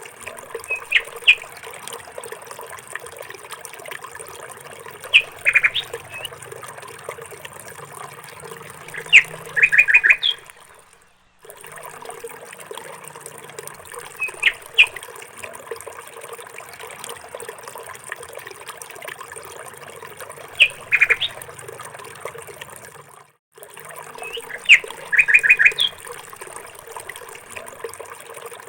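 Small birds chirping in short bursts of quick high notes every few seconds over a steady trickle of running water. The sound cuts out briefly twice, as if the ambience were a looped track.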